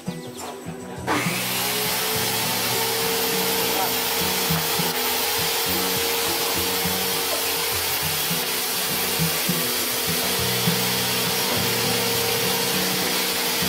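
A power tool starts about a second in and runs steadily while working wood, over background music.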